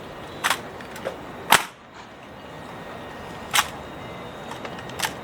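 Sharp claps and knocks of an honor guard's rifle drill: a handful of separate strikes at uneven spacing, the loudest about a second and a half in.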